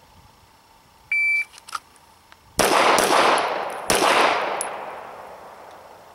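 A shot timer's start beep, then three 9mm shots from a Smith & Wesson M&P Pro Series pistol, the first about a second and a half after the beep. The first two shots come close together to the body and the head shot follows just under a second later, each crack leaving a long echo that dies away.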